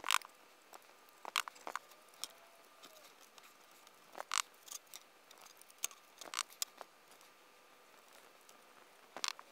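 Scattered light clicks, taps and rustles as the plastic Commodore 64 case is turned over on a workbench and a tub of baking soda is handled.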